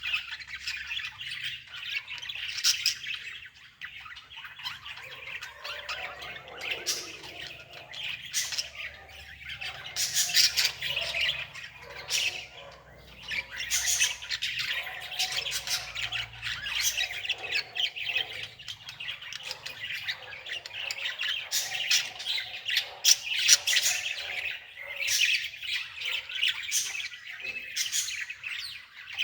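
Birds chirping and squawking, many short calls overlapping in a dense, continuous chatter.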